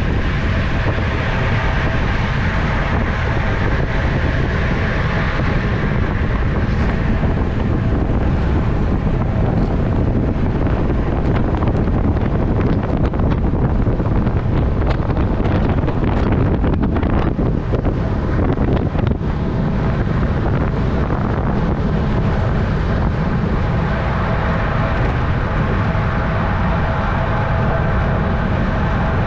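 Steady wind noise buffeting the microphone of a camera on a road bike riding at speed, with a faint steady whine underneath.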